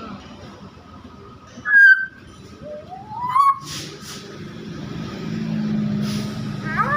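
Nias hill myna giving loud, clear whistles: a short loud whistle about two seconds in, a whistle gliding upward about a second later, and a few quick rising notes near the end. A low steady hum builds underneath from about five seconds in.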